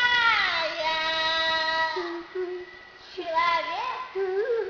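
A high voice singing unaccompanied: a long note slides down about half a second in and is held, then after a short break shorter notes waver up and down.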